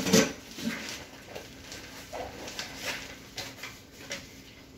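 Brown flooring paper and plastic sheeting rustling and crinkling as it is handled, in scattered crackles over a faint steady hum. A brief vocal sound right at the start is the loudest moment.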